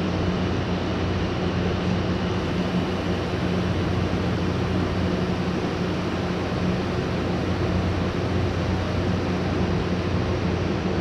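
Window-type air conditioner running steadily: a low, even hum from the compressor under a steady rush of fan air. The unit is running normally again with its refrigerant charge topped up.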